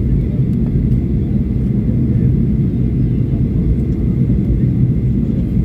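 Aircraft engines giving a steady low rumble, with a faint, steady high tone above it.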